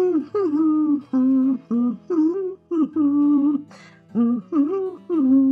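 A voice singing a wordless tune in short, separate notes, about two a second.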